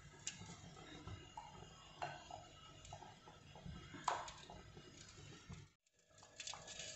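Faint, occasional light clinks and taps from marinated fish pieces being laid onto a wire oven rack over foil, against quiet kitchen background.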